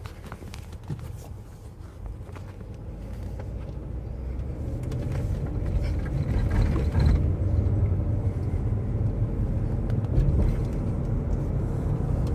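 Interior rumble of a 2016 Cadillac Escalade ESV pulling away and gathering speed: the low engine and road rumble grows steadily louder over the first few seconds, then holds at cruising level.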